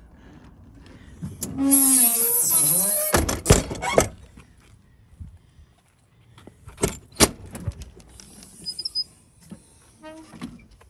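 Storage-bay doors on a bus-conversion motorhome being shut and opened: a squeal with a hiss for about a second and a half, then several clunks as a door shuts, and two sharp latch clacks a few seconds later, with faint rattling near the end.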